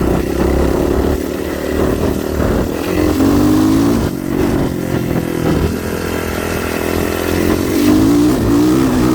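A vehicle's engine running steadily on the move, revving up twice, about three seconds in and again near the end.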